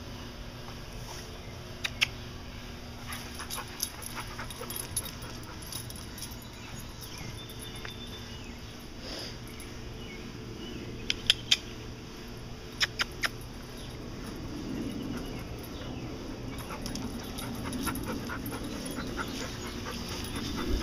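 A pit bull panting, loudest in the last third as she comes close. A few sharp clicks are scattered through: one about two seconds in, a pair about halfway, and three more a couple of seconds later.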